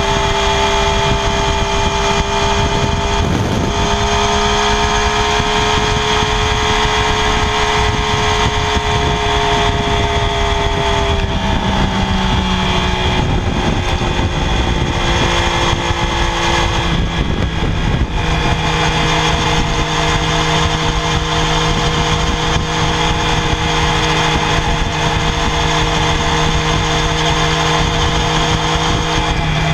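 Triumph Daytona 675R's 675 cc inline three-cylinder engine running at steady high revs through its stock exhaust. The pitch holds level, then drops a step about eleven seconds in and again about seventeen seconds in.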